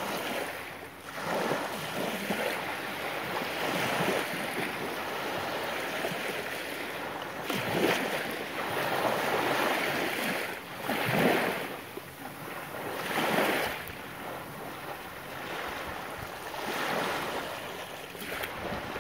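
Ocean surf: a steady wash of waves, swelling and falling back every few seconds, with some wind on the microphone.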